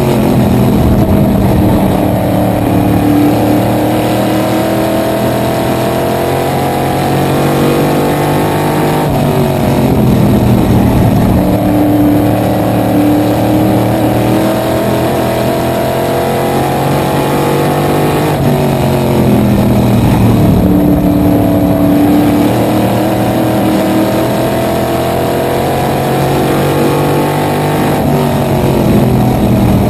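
Small-block V8 of a supermodified race car at racing speed, heard on board. The engine note drops and climbs back up in a steady cycle about every nine seconds, easing off into each turn and pulling hard down each straight.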